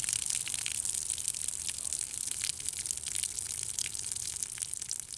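Soda fizzing and trickling out of aluminium cans freshly holed by pellets, spilling over the table edge. It fades gradually.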